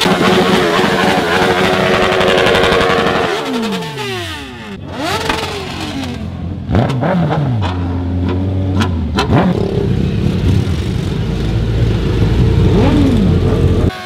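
Suzuki Hayabusa's inline-four engine running steadily, then revved in several quick throttle blips that rise and fall in pitch, with a low idling rumble between them.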